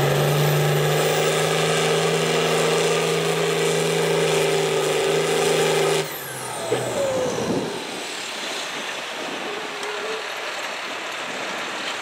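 Turbocharged International Harvester farm tractor diesel running flat out under full load as it drags a pulling sled, a loud steady drone. About six seconds in the sound drops suddenly and the engine revs fall away as the pull ends, leaving a quieter engine and background.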